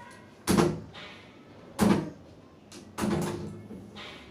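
Three dull knocks about a second and a quarter apart, each with a brief low ring, the last one doubled.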